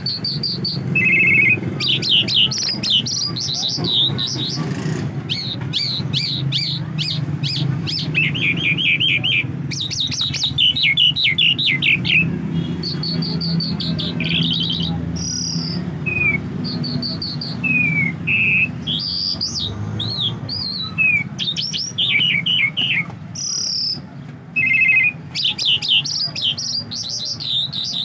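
Caged Irani jal songbird singing a long run of quick, high chirping trills and whistled notes in short phrases, with brief pauses between them, over a low steady background rumble.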